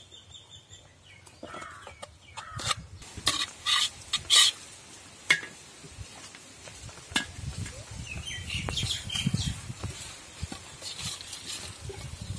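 A metal spoon scraping and clinking against aluminium pots as cooked rice is tipped from one big vessel into another and its lumps are broken up. A string of sharp clinks, the loudest about four seconds in, then softer scraping and shuffling.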